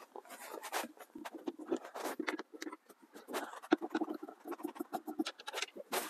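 A screwdriver scratching and clicking as it turns short Phillips screws out of a plastic glove box, with plastic trim being handled. A quick run of small ticks comes in the middle.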